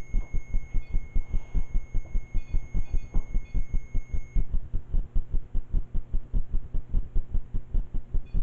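Low, even throbbing pulses, about five a second, with a faint steady high whine that stops about four seconds in.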